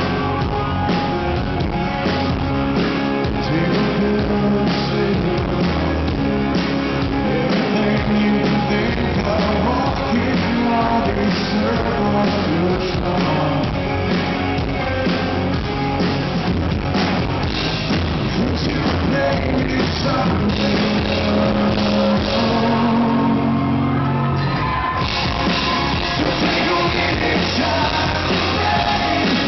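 Live rock band: a male lead singer sings over electric guitars and drums.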